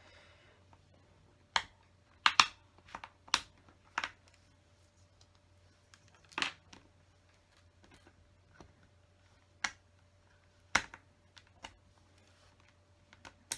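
Plastic LEGO bricks clicking and knocking as they are handled and pressed into place: sharp irregular clicks, bunched a few in quick succession about two to four seconds in, then single ones a few seconds apart. A faint steady hum runs behind.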